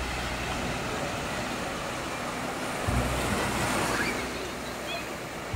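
Sea surf washing onto a beach as a steady hiss of breaking waves, with a low rumble underneath.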